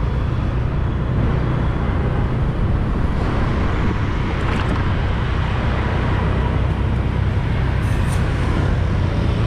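City street traffic with a steady low rumble.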